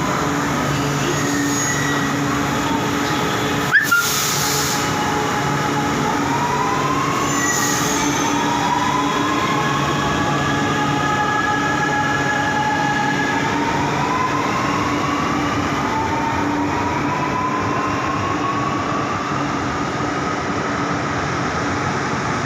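Metro train running, with a steady rumble and a whine that rises in pitch several times over, typical of its electric traction motors as it picks up speed. A single sharp knock comes about four seconds in.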